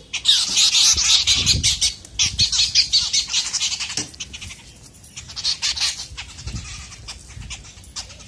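Several wild birds fighting, giving harsh, rapid squawking calls in loud bursts through the first four seconds and again about five and a half seconds in, then quieter.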